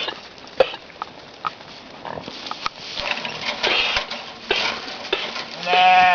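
Alpine billy goat coughing: a series of short coughs, then one bleat near the end. A sharp click comes about half a second in.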